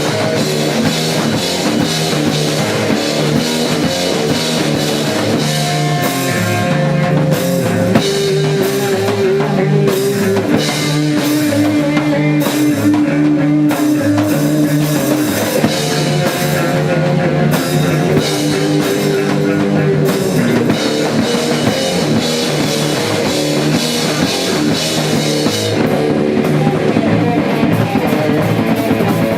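A rock band playing live: electric guitar and drum kit driving a steady rock song, with some held guitar notes partway through.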